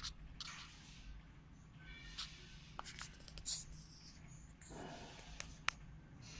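Hot plate plastic welding machine at work: a steady low hum with scattered sharp clicks and several short hissing bursts.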